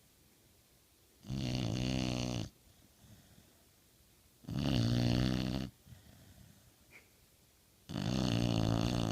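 Pit bull snoring in its sleep: three long snores about three seconds apart, each lasting a little over a second.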